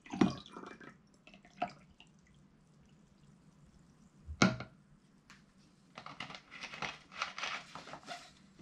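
A few sharp knocks of bottle and glass, the loudest about four and a half seconds in, then sparkling water poured into a glass, running and fizzing for about two seconds near the end.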